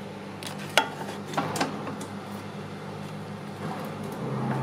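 Hand tools and small metal parts clicking and clinking as they are handled, with a sharp click about a second in and a couple more soon after, over a steady low hum.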